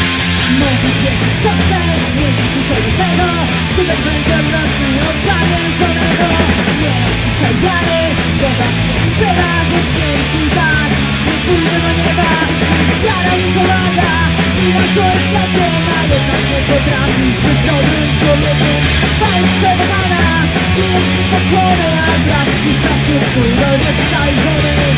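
A punk-rock band playing live in a rehearsal room: electric guitar, bass guitar and drums, with a woman singing Polish lyrics into a microphone over them.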